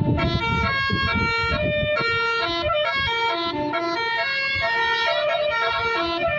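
Bus telolet (basuri) multi-tone horn playing a melody: loud pitched notes stepping up and down several times a second, over a low rumble.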